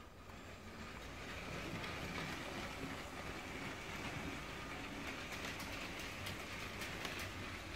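Motorized Lego City Cargo Train (60052) running on plastic track: the electric train motor whirs and the wheels rattle over the rails. It gets louder over the first second as the train pulls away, then runs on steadily with scattered clicks.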